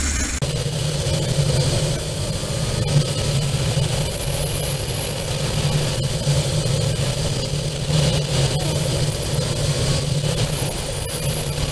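Motorcycle engine running at a steady cruising speed, heard from the bike while riding, under a steady rush of wind and road noise. There is a brief dropout about half a second in.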